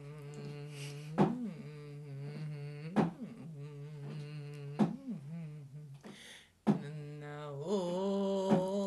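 A voice humming long, steady, low notes, each note bending into place after a sharp click that comes about every two seconds. Near the end the humming rises to a louder, higher held note.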